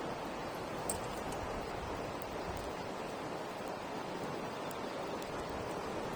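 Campfire burning: a steady hiss with a few faint, sharp crackles, the clearest about a second in.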